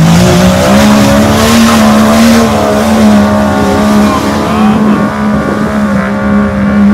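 Jeep Cherokee's engine held at high revs while the Jeep sits stuck in deep mud, its wheels spinning and slinging mud. The pitch climbs about half a second in, then holds steady and loud.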